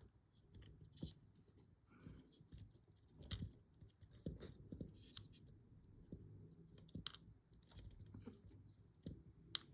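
Faint, scattered small clicks and taps as lock pins are tipped out of a padlock plug and handled, with a couple of sharper clicks.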